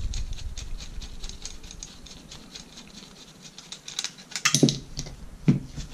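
Gear puller being unscrewed by hand from a bevel gear held in pliers: a fast run of light metallic clicks and scrapes as the threads turn, with a few louder knocks of metal on metal a little after the middle.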